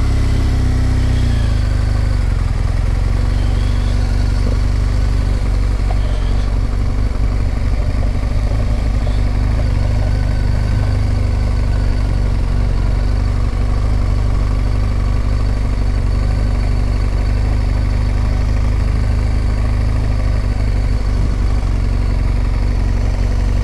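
2016 BMW R1200GS Adventure's boxer-twin engine running steadily at low road speed, picked up by a helmet chin-bar microphone.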